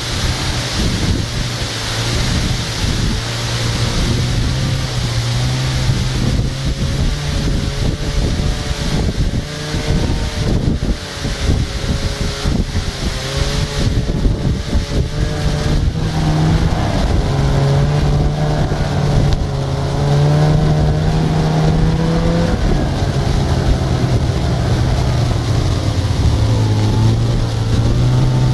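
A motor engine running, its pitch stepping up and down as it speeds up and slows, with wind buffeting the microphone.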